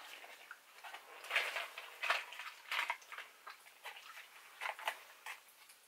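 Irregular crinkles and clicks of a small candy package being handled and opened.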